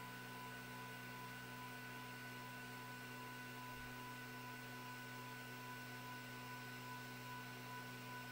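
Faint steady hum with two thin, unchanging high whines from a running Prusa i3-style 3D printer, its fans and power supply. No stepper-motor movement sounds stand out.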